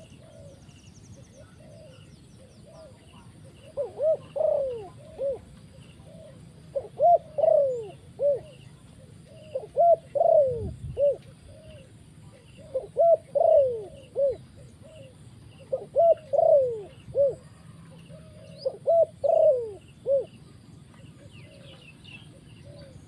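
Spotted dove cooing: six phrases about three seconds apart, each of three or four low coos, with one longer coo in each phrase falling in pitch.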